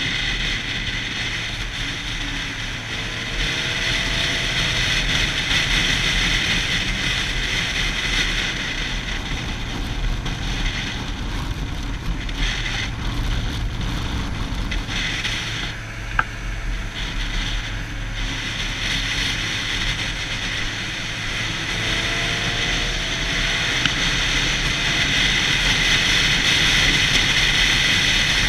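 Yamaha YZF-R6 inline-four motorcycle riding at speed, the engine running under steady wind noise. Twice the engine pitch rises briefly, and there is a single sharp click about halfway through.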